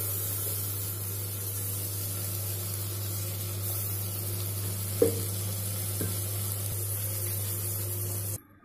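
Onions and dals frying in hot oil in an aluminium pot, sizzling steadily as ground tomato paste is poured in and stirred. A sharp metal clink of the ladle against the pot about five seconds in and a lighter one a second later; the sound cuts off suddenly near the end.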